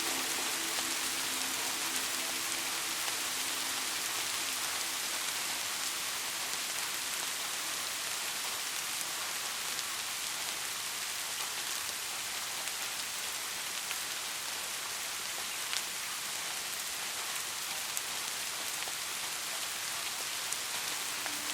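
Steady rain falling and pattering on surfaces, with a few sharper single drops standing out near the end.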